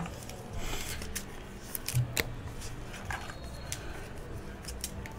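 Baseball trading cards being handled and slid against one another: light rustles and scattered clicks, with a sharper tick about two seconds in.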